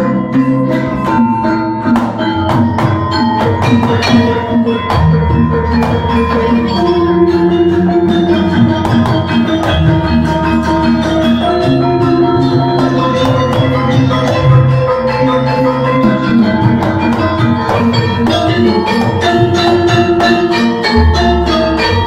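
Javanese gamelan ensemble playing: bronze kettle gongs (bonang) and bar metallophones (saron) ring out the melody over kendang hand-drum strokes. A deep low stroke comes near the end.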